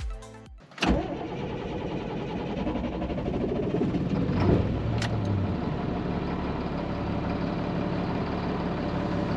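A vehicle engine comes in suddenly a little under a second in and then runs steadily, with a brief rise around the middle.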